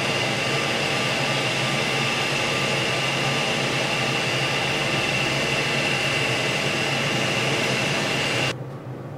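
CES cryogenic spiral freezer's fan motors running: a steady mechanical noise with a high whine over a low hum. It drops suddenly to a quieter hum about eight and a half seconds in.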